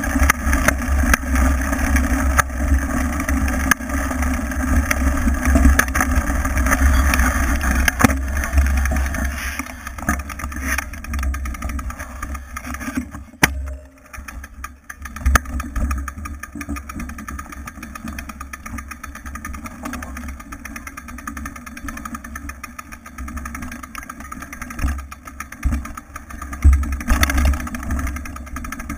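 Mountain bike ridden over a bumpy dirt trail, heard from a camera mounted on the bike: a low rumble of wind and tyre noise with frequent knocks and rattles from the bumps. It is loudest in the first ten seconds, dips briefly about thirteen seconds in, and stays quieter after that.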